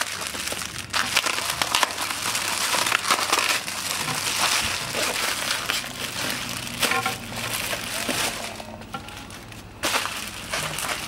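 Bubble wrap and plastic packaging crinkling and rustling as they are pulled off a hydrofoil mast by hand, briefly quieter near the end.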